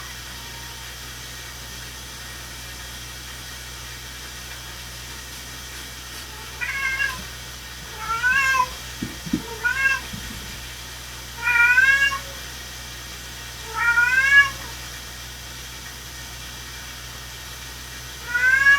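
An animal calling six times at irregular intervals, each call a short pitched note that rises and then falls. A few soft knocks come between the second and third calls.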